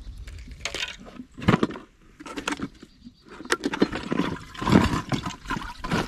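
Water splashing and sloshing in irregular bursts, loudest about a second and a half in and again near five seconds.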